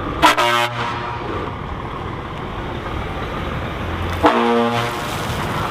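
A truck engine running steadily, with two short air-horn blasts, one just after the start and one about four seconds later.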